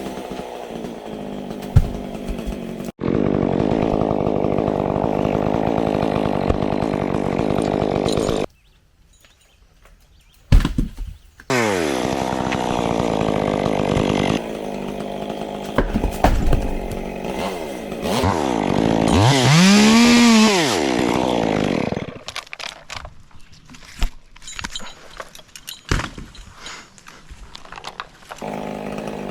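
Chainsaw running and cutting into birch wood, its engine note jumping between idle and full throttle. It goes almost quiet for about two seconds around nine seconds in, and revs up and back down in one loud sweep around twenty seconds in.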